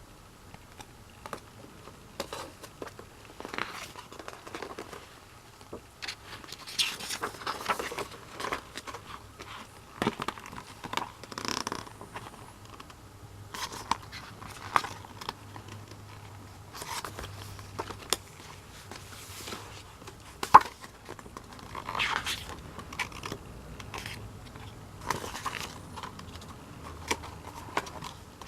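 An album's packaging being unwrapped and handled: irregular crinkling, tearing and scraping, with small clicks and one sharp click about two-thirds of the way through.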